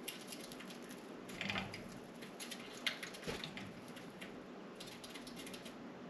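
Budgies scratching and clicking on window blinds: a quiet patter of small clicks from feet and beaks, in a few busy flurries, with one louder tap about three seconds in.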